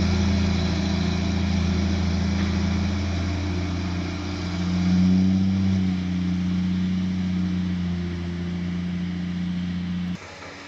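Diesel engine of a heavy machine running steadily, picking up briefly about five seconds in, then cutting off abruptly near the end.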